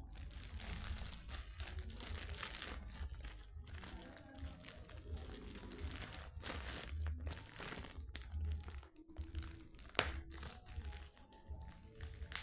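Plastic wrapping crinkling and rustling as a candy-filled gift cup is unwrapped, with a sharp click about ten seconds in.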